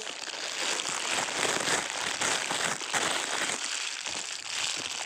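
Shiny black plastic wrapping of a surprise package being squeezed and crumpled in the hands, making a dense, continuous crinkling crackle.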